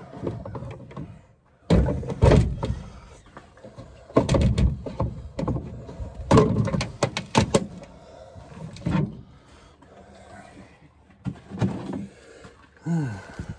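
Irregular knocks and clunks, about ten spread unevenly, with quieter shuffling between; no saw engine is running. A short vocal sound comes near the end.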